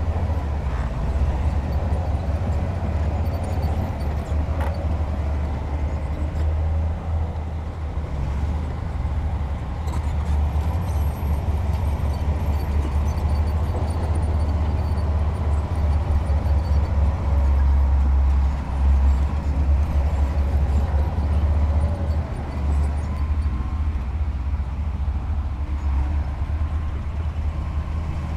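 Heavy diesel earthmoving machinery running steadily with a deep rumble, with a few sharp knocks along the way.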